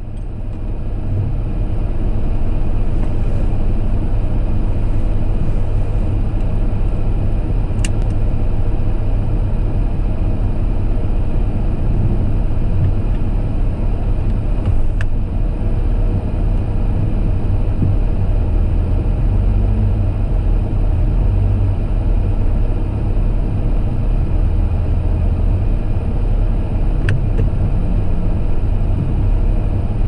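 A car driving in the rain: a steady, deep road and engine rumble with tyre noise, fading in over the first couple of seconds. Three faint ticks come through it.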